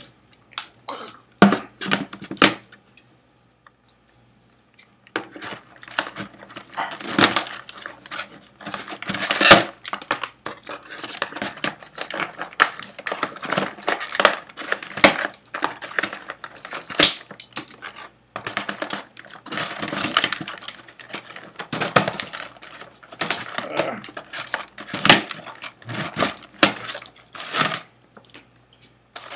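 Cardboard insert and plastic packaging crinkling and rustling while a toy action figure is untwisted from its twist ties, with irregular clicks and small knocks. It goes quieter for a couple of seconds early on, then the handling picks up again.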